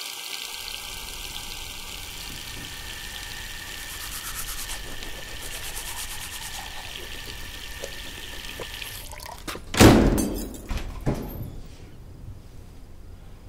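Water running into a sink, with the scrubbing of a toothbrush, for about nine seconds before it stops. About a second later comes a sudden loud rush of noise, the loudest sound here, which fades within a second or so.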